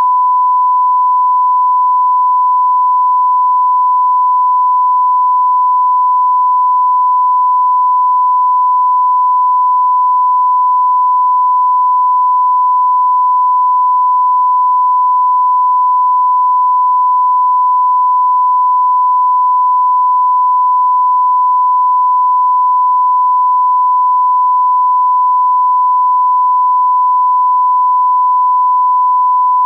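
A steady 1 kHz sine test tone, one unbroken pitch at constant level, of the kind that accompanies a TV no-signal or test-card screen.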